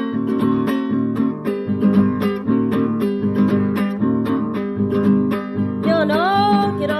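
Music: a strummed acoustic guitar playing steady chords. Near the end a held note slides upward over it.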